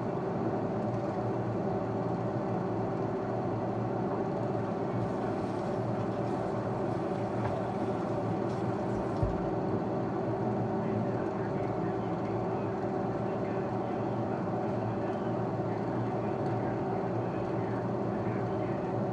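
Steady mechanical hum, like a motor or fan running, with one short knock about nine seconds in.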